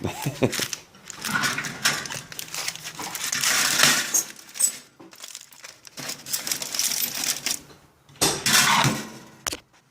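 Handling noise of foil-wrapped ball bearings: aluminium foil crinkling and metal clinking, with scattered sharp clicks, as the bearings are moved about for heating.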